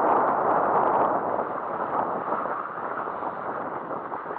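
Rushing noise of skiing downhill: skis sliding over snow with air rushing past the microphone, loudest at first and easing off gradually.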